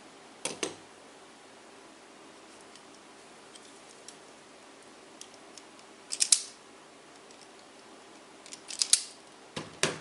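Insulation being stripped off a two-core power cord: a scissor snip about half a second in, then the snapping clatter of an automatic wire stripper gripping and pulling the insulation off, around six seconds and again around nine seconds, with a last click near the end.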